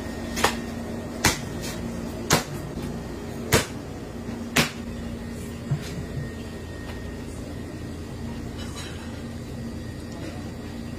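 Large kitchen knife chopping through raw octopus onto a plastic cutting board: six sharp knocks about a second apart in the first six seconds. A steady low hum runs underneath.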